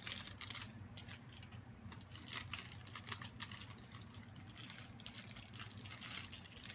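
Plastic lollipop wrapper crinkling in many short crackles as it is wrapped back around the lollipop, over a low steady hum.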